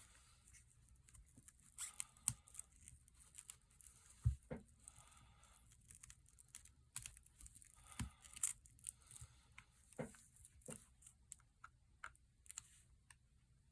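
Faint, scattered clicks and short scraping and tearing sounds of tools working around a smartphone's back glass, as the adhesive holding the glass is pried and cut loose.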